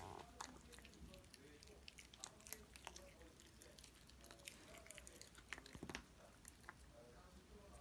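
A puppy crunching a hard snack: an irregular run of small, crisp crunches and clicks.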